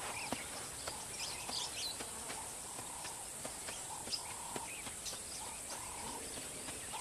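Bush ambience: birds chirping, one giving a short flat call about once a second, over a steady high-pitched insect hiss.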